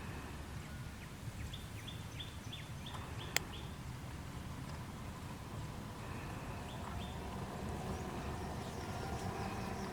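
A bird calling: a quick run of short, high chirps that fall in pitch, about four a second, with a few more later. Under it runs a steady low rumble of outdoor ambience, and a single sharp click comes about a third of the way in.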